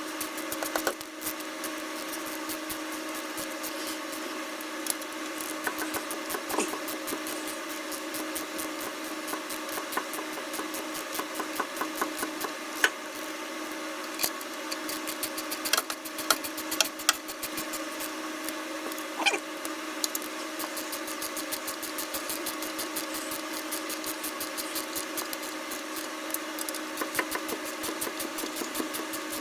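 A steady mechanical hum with a fast, even ticking, and a few sharp metallic clicks scattered through it, like hand tools being handled.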